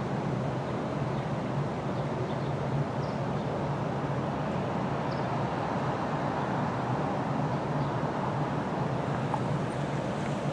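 Steady, unbroken low rumble of vehicle or machinery noise, with a continuous low hum under it and a few faint short high chirps.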